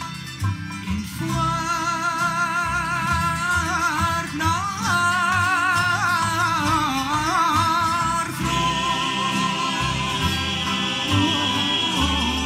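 Male soloist singing a Cape Malay Nederlands song in a heavily ornamented, wavering melismatic line, over an accompaniment of steel- and nylon-string guitars, double bass and bowed strings. After about eight seconds the solo line gives way to a fuller, brighter ensemble sound.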